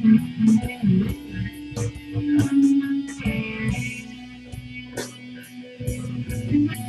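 Blues played on guitar: plucked notes and strums over a sustained low note.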